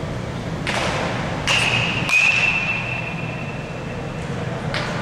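A metal baseball bat hitting a ball with a sharp ping about a second and a half in, a second crack just after, and a bright metallic ring that hangs on for about two seconds, over the low steady rumble of a large indoor hall.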